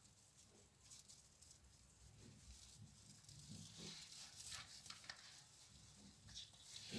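Near silence, with faint scattered rustles of yarn being pulled through a crocheted bag with a crochet hook.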